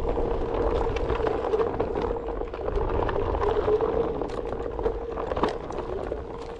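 Skateboard wheels rolling over a packed-dirt trail: a continuous gritty rumble with small clicks from pebbles and bumps, over a steady mid-pitched hum.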